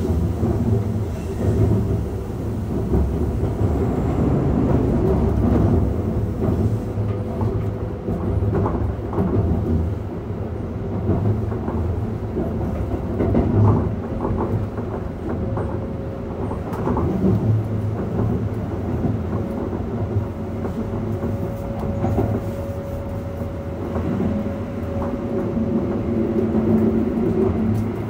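Running sound of a Keikyu 600 series electric train with Mitsubishi GTO-VVVF traction equipment: a steady low rumble with a thin whine that rises slightly in pitch about halfway, and scattered clicks of the wheels over the rails.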